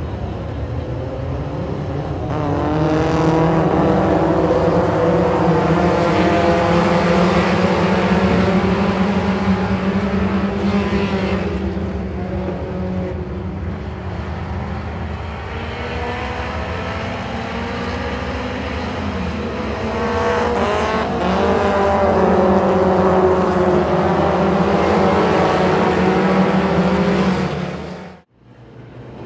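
A pack of mini stock race cars running together on a dirt oval, many engines under power at once. The sound swells loud as the field comes by close, eases as it goes down the far side, and swells again as it comes back round. It cuts off abruptly near the end.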